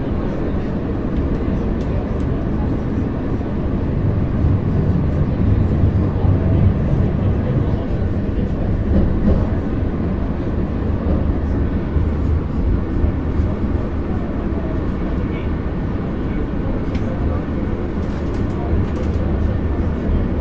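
Underground funicular car running through its tunnel: a steady low rumble that swells a little and eases off, with voices of people talking over it.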